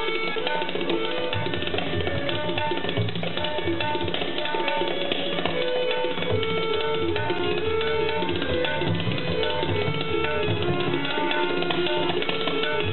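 Two pairs of tabla played together in a dense, fast stream of strokes, the bass drums adding deep booming strokes, over a harmonium repeating a short lehra melody of held notes.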